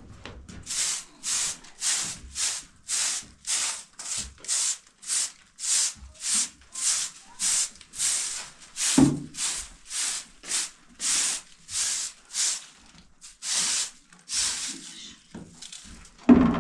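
A short-handled straw broom sweeping a bare floor in short, even strokes, about two swishes a second. There is a knock about halfway through and a louder one near the end.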